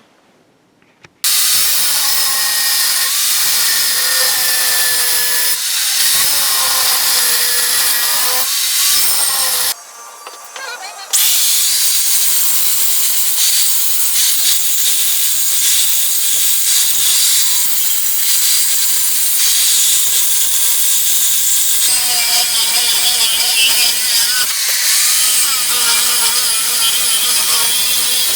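Electric power tool, most likely an angle grinder, grinding or cutting steel: a steady hissing whine that drops out briefly at the start and again about ten seconds in.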